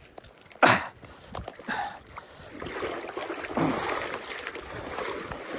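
Wind buffeting the microphone over open water. A sudden loud sound comes about two-thirds of a second in, a smaller one near two seconds, and the wind noise rises through the second half.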